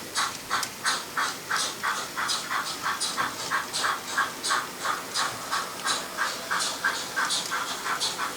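Sound-equipped model steam locomotive chuffing steadily, about three exhaust beats a second.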